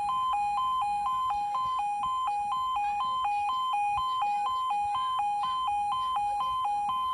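Level crossing warning alarm sounding steadily: a two-tone 'yodel' that switches rapidly back and forth between a lower and a higher tone, about two and a half times a second. It warns that the barriers are down and a train is due.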